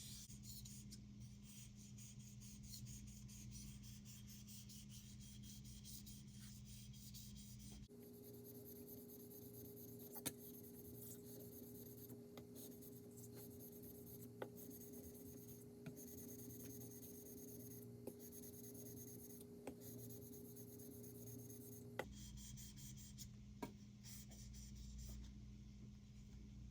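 Faint rubbing and scraping of a white #2 steel Santoku blade being polished on a Nusantara natural whetstone, with a few light clicks, over a steady low hum.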